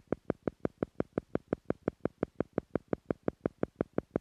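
Theta-frequency beat tone for brainwave entrainment: a steady, rapid train of short electronic tone pulses, about four to five a second, meant to slow the listener's brainwaves to the theta level.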